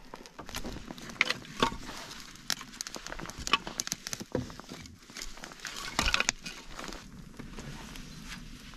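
A kindling fire of birch bark and dry twigs catching, with irregular sharp crackles and snaps, and split kindling sticks clattering as they are laid on the pile.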